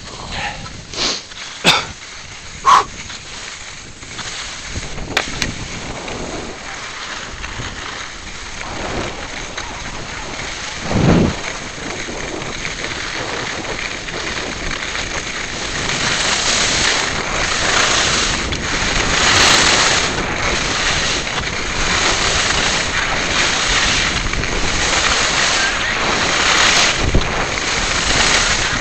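Skis hissing and scraping over packed snow, with wind rushing over the camera's microphone during a ski descent. The noise grows louder about halfway through and swells and eases in waves. There are a few sharp knocks near the start and a low thump about a third of the way in.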